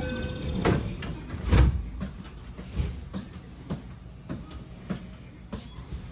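Irregular knocks and clunks from a JR West 207 series electric train car, the loudest and deepest about a second and a half in, with smaller ones following every second or less. A few steady tones end just after the start.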